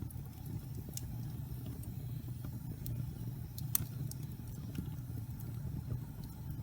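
Wood fire burning in a fireplace: a steady low rumble of flames with sharp, scattered crackles and pops, the loudest just under four seconds in.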